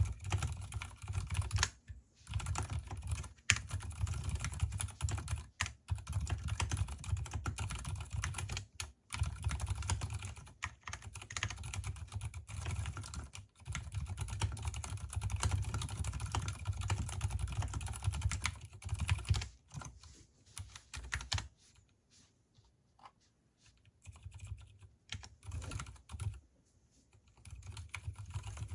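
Typing on a mechanical keyboard with Gateron silent brown switches, left unlubricated, and lubricated stabilizers: a dense run of soft, low keystroke thuds. The typing thins to scattered keystrokes with gaps about two-thirds of the way in, then picks up again near the end.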